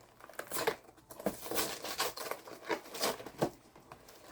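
Plastic snack wrapper crinkling and rustling in irregular bursts as the package is handled and opened.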